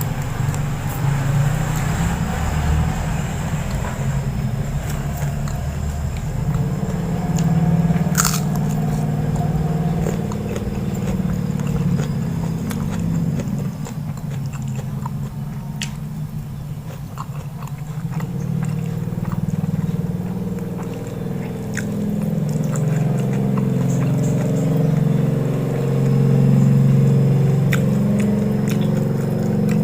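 A person chewing and biting mouthfuls of oily mutton fat close to the microphone, with a few sharp clicks.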